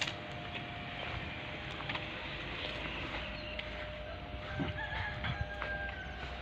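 A rooster crowing over steady background noise and a faint constant hum.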